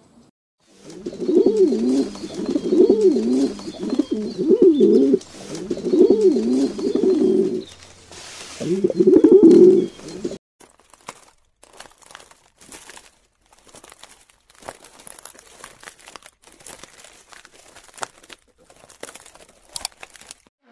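Feral pigeon cooing: about five bouts of throaty, wavering coos over roughly nine seconds, stopping suddenly. Faint scattered clicks follow.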